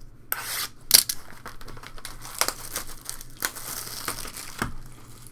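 Trading card pack wrapper crinkling and crackling as it is handled, with a sharp loud crackle about a second in.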